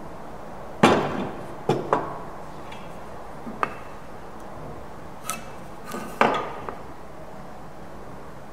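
Wooden pieces and a try square knocking and clacking on a wooden workbench as they are set down and repositioned: a sharp knock about a second in, two quick knocks just after, a light click, then a short clatter near the end.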